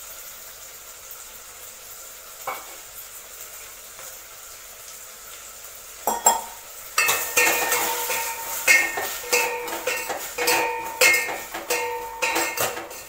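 Low steady sizzle of brinjal, potato and onion frying in oil in a stainless steel pot. From about seven seconds in, a metal spoon stirs and scrapes the pot, with rapid ringing clinks.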